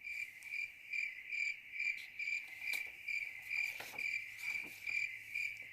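Cricket chirping steadily, about two short, high chirps a second.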